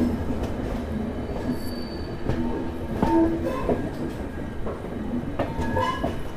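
Passenger train running on a curving single-line hill section, heard from a carriage window: a steady rumble with knocks from the wheels over the track and short intermittent wheel squeals on the curve.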